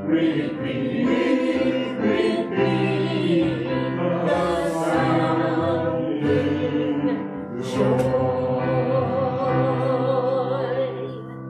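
A group of voices singing a hymn together, holding long, wavering notes over a steady low accompaniment.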